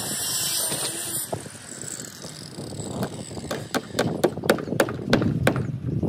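A run of sharp metallic clicks and clinks, several a second, starting about halfway through: a steel rod knocking among nails in a bowl. A steady background noise fills the first second or so.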